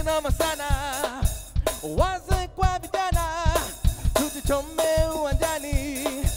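Live band playing an upbeat song, with a steady drum beat about three times a second under a wavering lead melody.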